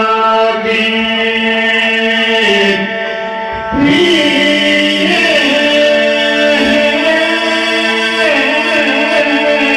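Two men singing an Albanian folk song through microphones and a PA over electronic keyboard accompaniment: long held, ornamented notes over a steady drone. The music thins briefly about three seconds in, then comes back full.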